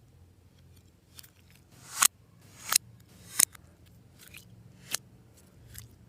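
Slime being worked by hand, with about four sharp snaps or pops that each build up briefly and then cut off suddenly.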